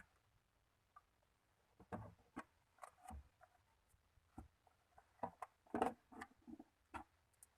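Slime being worked by hand, giving an irregular scatter of soft sticky clicks and small pops that start about two seconds in and cluster most loudly near the end.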